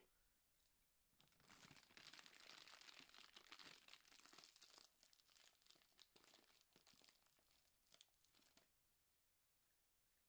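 A cat crunching dry kibble from a bowl: a faint, dense crackling of small crunches that starts about a second in and stops after about seven seconds.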